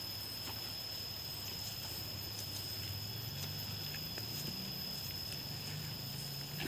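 Loose earth tipped from a plastic bucket into a planting hole, with a few faint soft knocks as it lands, under a steady high-pitched tone and a low wavering hum.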